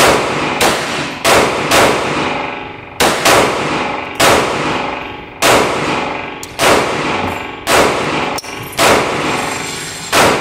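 Browning Buck Mark .22LR semi-automatic pistol fired in a quick string of about a dozen shots at uneven spacing, some in fast pairs. Each shot leaves a decaying echo.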